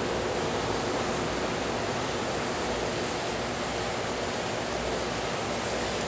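Steady, even hiss of background noise with no separate events, and a faint low steady hum beneath it.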